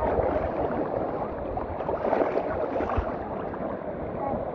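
Shallow surf water sloshing and splashing around a person wading, with wind buffeting the microphone.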